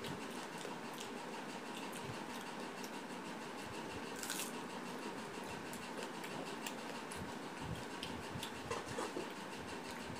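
Eating by hand from steel plates: soft scattered clicks and smacks of chewing and of fingers mixing rice against the plates, over a steady background hiss.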